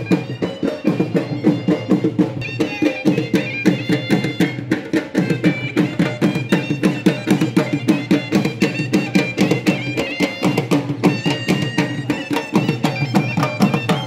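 Pashtun folk music for the Khattak dance, played on dhol drums beaten in a fast, even rhythm of about five strokes a second under a high held melody line, as from a surnai.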